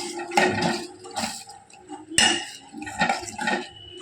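A metal spoon stirring a simmering curry in a cooking pot: irregular knocks and scrapes against the pot and a sloshing of liquid, with one sharp clink about two seconds in.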